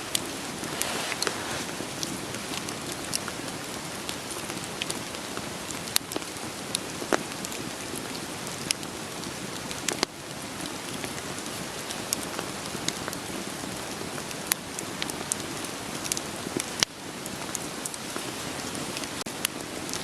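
Steady rain pattering, mixed with a wood fire crackling: sharp, irregular pops of burning logs scattered over the even hiss of the rain.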